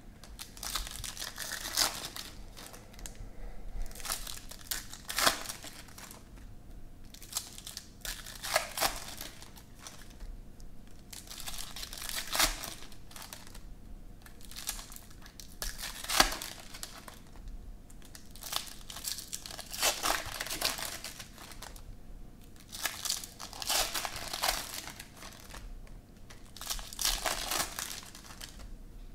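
Trading-card pack wrappers being torn open and crinkled by hand, with cards being handled and sorted between them: irregular bursts of crinkling and tearing every second or few seconds.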